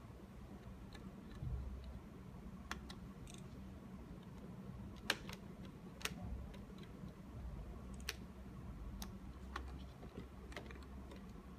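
Small screwdriver driving screws back into a Yuneec ST10+ remote controller's circuit boards and plastic case, only snug: faint, sharp, irregular clicks and ticks of the bit, screws and parts, a second or so apart.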